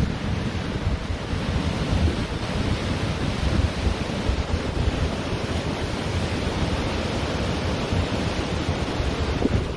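Ocean surf washing steadily onto a beach, with wind buffeting the microphone as a fluttering low rumble underneath.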